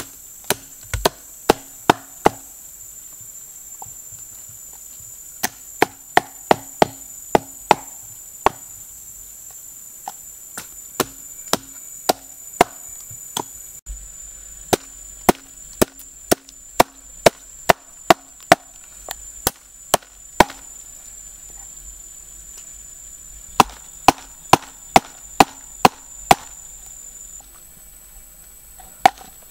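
A heavy knife chopping raw chicken on a round wooden chopping block. The sharp knocks come in runs of several, about two or three a second, with pauses between. Near the end the blade cuts limes on the block.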